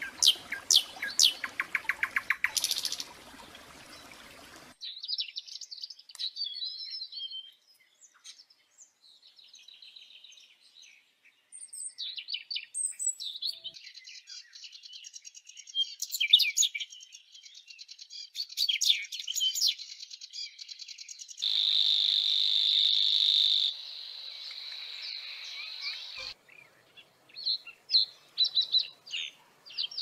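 Several small songbirds singing one after another: chirping phrases and fast trills, including a whinchat's song, with one steady high reeling note lasting about two seconds past the middle and sharp chirps near the end.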